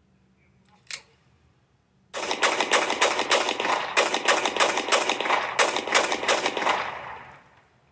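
A 9mm Beretta pistol: one sharp click about a second in, then a rapid string of shots at about five a second for some five seconds, the shots running into each other before fading out.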